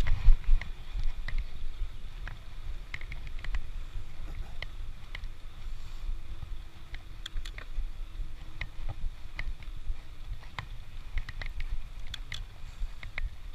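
Wind rumble on the microphone while riding a bicycle, with irregular sharp clicks and rattles a few times a second.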